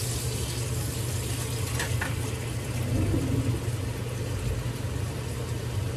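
Kitchen tap water running steadily into a sink, under a steady low mechanical hum.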